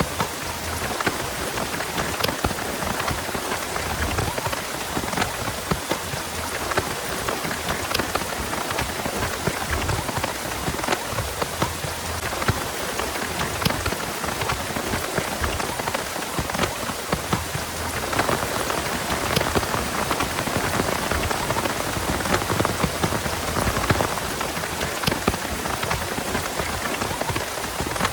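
Heavy rain falling steadily, with many sharp individual drop impacts.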